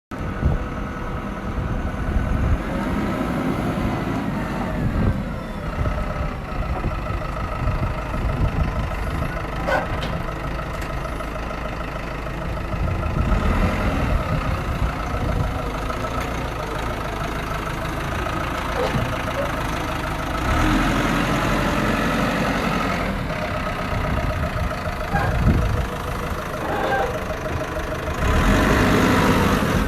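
A vehicle engine running steadily at idle, with a few sharp knocks.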